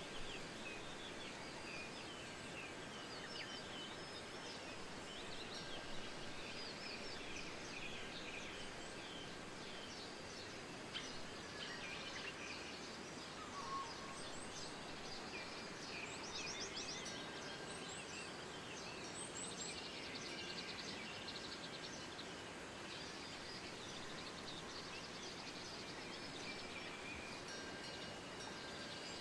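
Many small birds chirping and trilling over a steady hiss of wind.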